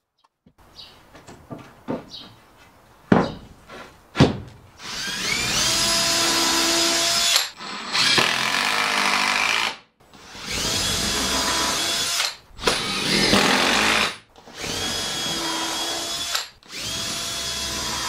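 Cordless drill run into wood framing in six bursts of about two seconds each, its motor pitch holding steady through each burst. A few light knocks and two sharp knocks come before the first burst.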